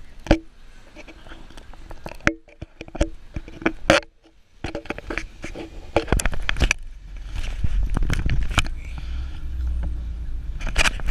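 Knocks, clicks and scrapes of a camera being shifted about on a car's dashboard. From about halfway in, the low rumble of the car driving in traffic takes over, with scattered rattling clicks on top.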